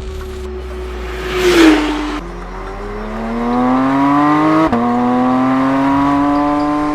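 2022 Porsche 911 GT3 Touring's naturally aspirated flat-six accelerating hard. The engine note climbs steadily through the gears, with upshifts about two seconds in and again near five seconds, each dropping the pitch before it climbs again.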